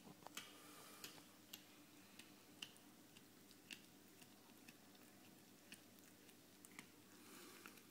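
Domestic cat chewing a dead rat: faint, irregular clicks of teeth working on the carcass.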